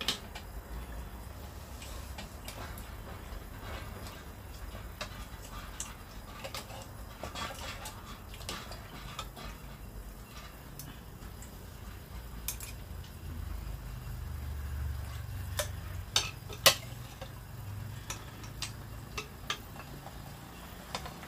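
Irregular clicks and clinks of metal tongs and a ladle against a pot and a frying pan as food is served and pork ribs are turned, the sharpest clink about three-quarters of the way through. A low steady rumble runs underneath.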